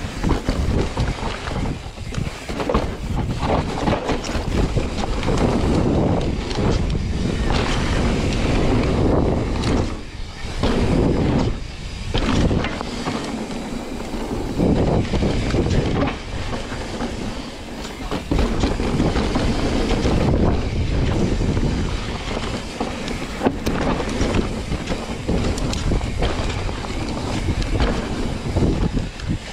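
Mountain bike descending a dirt trail at speed: continuous rumble and rattle of the tyres and bike over rough ground, mixed with wind on the microphone, swelling and dipping as the ride goes.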